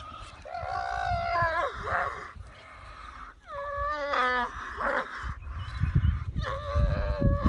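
Zebra distress calls, a series of pitched cries with falling glides, as it is held by the throat by a lioness. A low rumbling noise runs underneath in the last two seconds.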